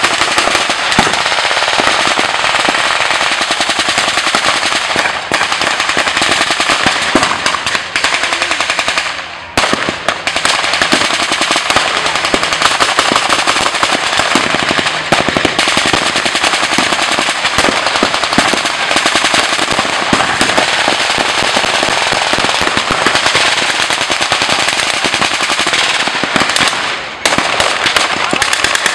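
Dense blank gunfire from reenactors' WWII-era weapons: rapid automatic bursts and shots crackling almost without pause, with two brief lulls, about a third of the way in and near the end.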